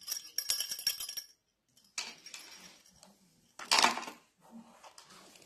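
Gift packages being handled on a table: plastic wrappers crinkling and small items clicking and clinking against each other, with a quick run of clicks at the start and louder rustles about two and four seconds in.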